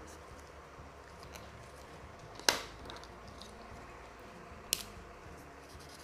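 Two sharp plastic clicks about two seconds apart, the first the louder, as felt-tip marker pens are handled while swapping from one colour to the next, over a quiet room.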